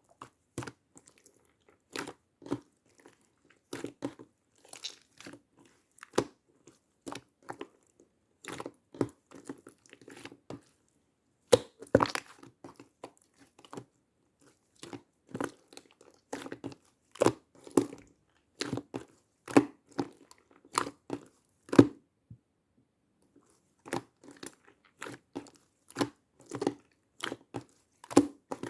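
Slime being pressed and stretched by hand, giving a string of sharp sticky pops and crackles at irregular intervals, with a brief pause about three-quarters of the way through.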